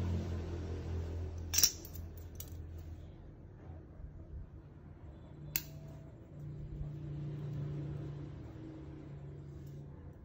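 Steel ruler set down on the table with a sharp metallic clack about a second and a half in, then a second, smaller click a few seconds later as scissor work begins. A low steady hum runs underneath.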